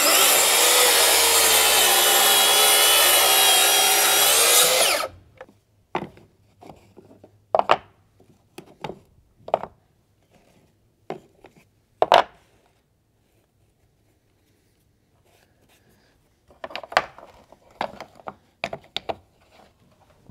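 Track saw cutting through decking boards for about five seconds, then stopping suddenly. After that come scattered sharp knocks and clatters, the loudest about two seconds after the cut ends.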